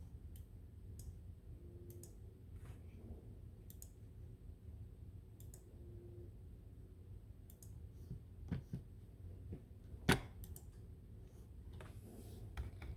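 Scattered light clicks over a low steady hum, with one sharper click about ten seconds in.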